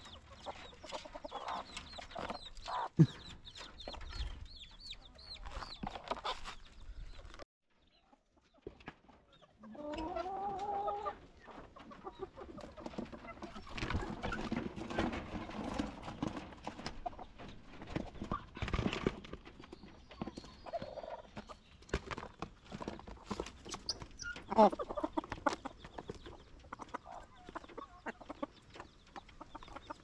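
Hens clucking and giving short calls around a feed tray, mixed with scattered clicks and knocks of the plastic tray being handled and pecked. The sound breaks off briefly about seven seconds in.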